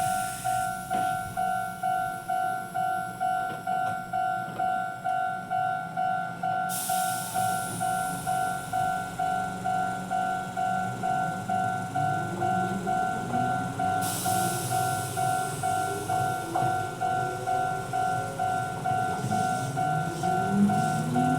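Level-crossing electronic warning bell ringing steadily, a two-tone ding at about two strokes a second, which signals that a train is approaching or passing. From about halfway in, a train's motor whine rises in pitch as it accelerates, under a hiss that comes and goes.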